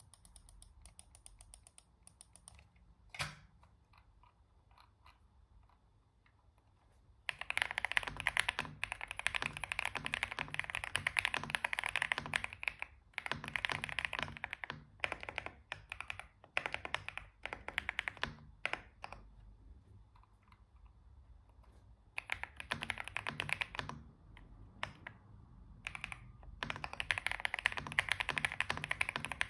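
Xinmeng M87 gasket-mount mechanical keyboard typed on in its stock form, with default switches and keycaps. After a quiet start and a single key click about three seconds in, fast runs of keystrokes begin near seven seconds, broken by short pauses and scattered single presses.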